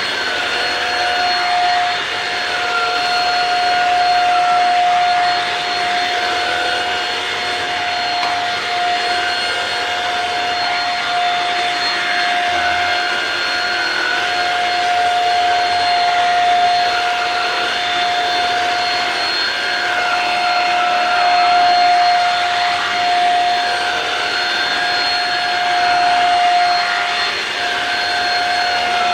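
Shark Rocket corded stick vacuum running with its mini motorized brush tool on a pillow: a steady, high-pitched whine with a second tone that wavers up and down as the tool is worked over the fabric.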